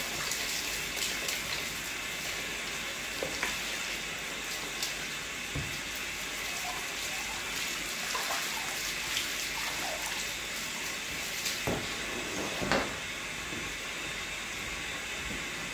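Water running steadily from a hose while a brush scrubs a greasy metal milling-machine part, with a few sharp knocks of the brush against the metal, the loudest about three-quarters of the way through.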